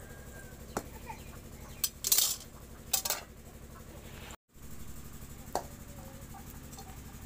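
Metal cookware clanking: an iron kadai, its metal ladle and a metal lid knocked together and set down on a mud stove. Two short clattering bursts come in the middle, and a single clink follows later.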